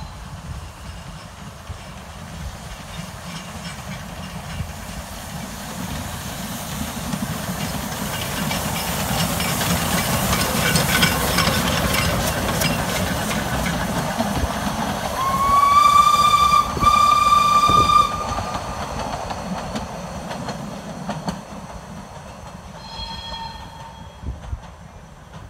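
Two narrow-gauge steam locomotives double-heading a train run past, their exhaust and wheel clatter building to a peak as they pass and then fading away. A steam whistle gives a long blast about halfway through, with a short break, and a fainter, shorter blast near the end.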